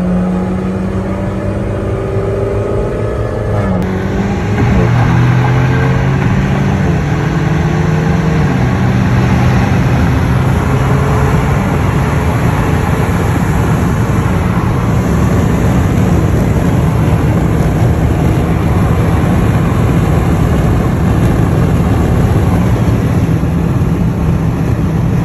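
Car engine and road noise heard from inside the cabin at highway speed. The engine note rises for the first few seconds, then gives way to a steady loud rush of engine and road noise.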